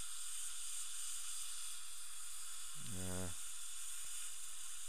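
Steady high-pitched hiss throughout, with a short vocal sound about three seconds in.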